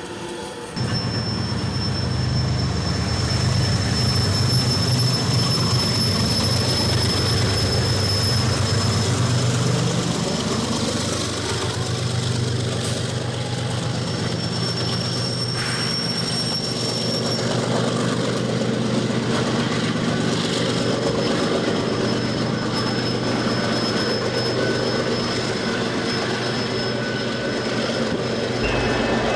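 Train rolling past, a steady low rumble that starts abruptly about a second in, with a high wheel squeal that comes and goes.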